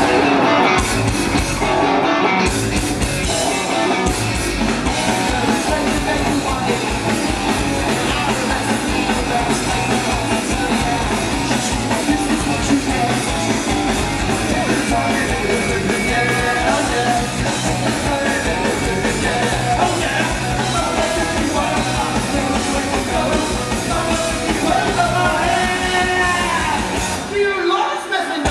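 A rock band playing live: distorted electric guitars, bass and drums, with a lead vocal singing over them. The low end drops out briefly just before the end, then the full band comes back in.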